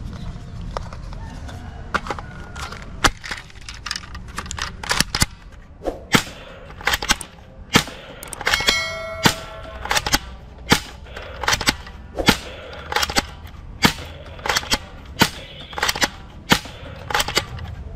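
Toy gun firing over and over: a long run of sharp snapping shots, about one or two a second. A short chiming ring sounds near the middle.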